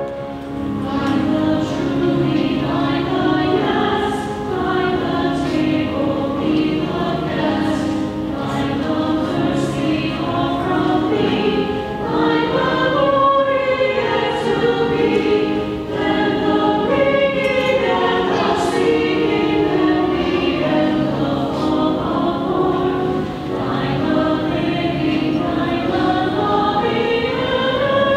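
A congregation singing a hymn together in long, held notes.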